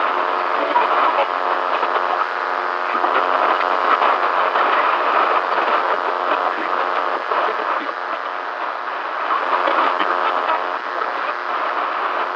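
News broadcast heard through a weak, breaking-up signal: a garbled, unintelligible voice buried in static, crackle and distortion, thin and narrow-band like a badly tuned radio.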